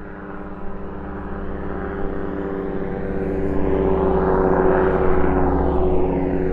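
A propeller airplane flying past, its engine drone growing louder to a peak about four to five seconds in.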